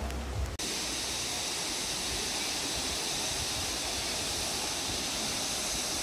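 Steady rush of river water flowing over rocks, starting abruptly about half a second in.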